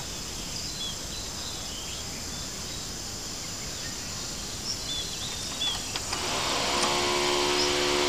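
Quiet background hiss with a few faint bird chirps. About six seconds in, a steady machine hum with several even tones starts and holds.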